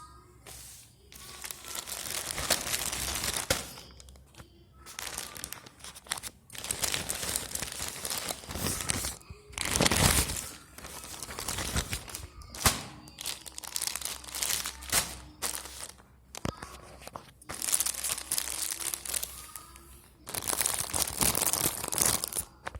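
Packaging crinkling, rustling and tearing in repeated bursts as a parcel is unwrapped, with a sharp crack about halfway through.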